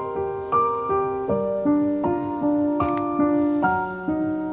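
Soft background piano music: a slow melody of single struck notes, each ringing and fading before the next, about two or three notes a second.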